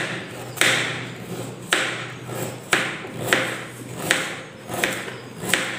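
Kitchen knife chopping through raw carrot onto a plastic cutting board: a sharp tap about every half second to a second, each with a short crunch as the blade cuts through.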